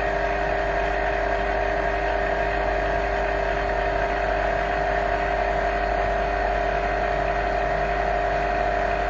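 Vacuum laminating machine running its lamination cycle: a steady mechanical hum with a few held tones, from its vacuum pump and press at work.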